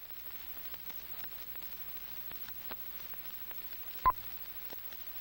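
Faint steady static hiss with scattered soft crackling clicks and one sharper click about four seconds in.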